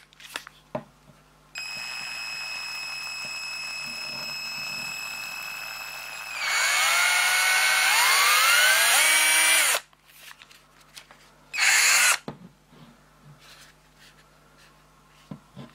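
DRA-12/P 12 V cordless drill-driver motor running with no load, first as a steady whine at low trigger speed for about five seconds. The trigger is then squeezed harder and it runs louder with its pitch climbing for about three and a half seconds before stopping, followed a couple of seconds later by one short burst.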